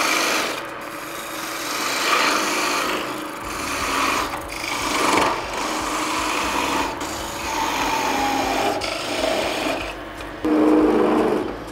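A turning tool cutting into a wood blank spinning on a lathe, peeling off long shavings as the piece is cut down to length: a continuous scraping hiss that swells and eases with the cut. Near the end a louder, lower-pitched cut lasts about a second.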